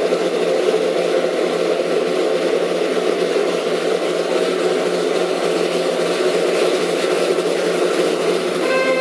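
Loud, steady ambient noise of a large exhibition hall with people gathering, an even din with no distinct events. At the very end a brass fanfare starts over it.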